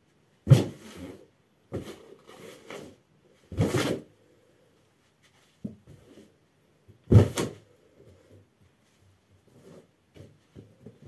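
Latex balloons stomped underfoot on a carpeted floor: a series of sharp bangs and thuds, the loudest about half a second in and another about seven seconds in, with smaller knocks and scuffs between.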